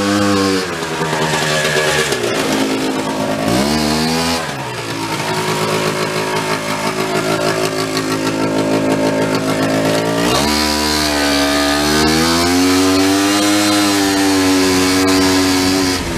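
Small vehicle's engine running under changing throttle while driving. The engine pitch rises and falls several times, with the longest swell in the second half.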